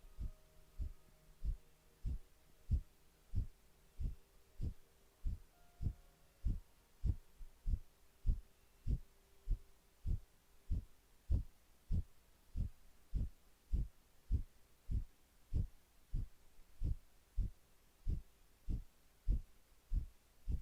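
Kapalabhati breathing: short, forceful exhales pumped through the nose at an even pace of about two a second, each a soft, low puff.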